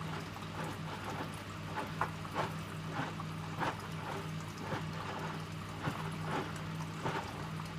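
Electrolux W455H commercial washing machine tumbling a load mid-wash: its motor hum swells and fades as the drum turns, with irregular sloshing and thuds of wet laundry.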